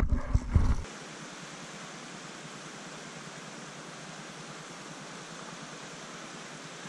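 A few loud knocks and rustles of handling in the first second, then a steady, even hiss of running stream water.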